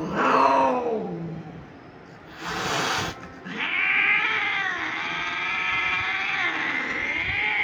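Female Persian cat yowling while mounted during mating. A short falling cry comes near the start and a brief noisy burst about two and a half seconds in. One long wavering yowl follows from about three and a half seconds on.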